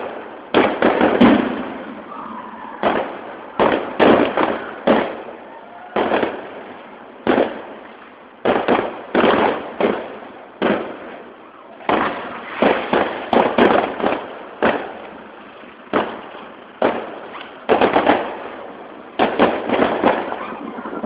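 Fireworks display: an irregular string of aerial shell bangs, roughly one or two a second, each dying away over about a second.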